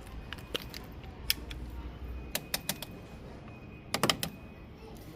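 A series of sharp, irregular clicks and light knocks, with a louder cluster of knocks about four seconds in.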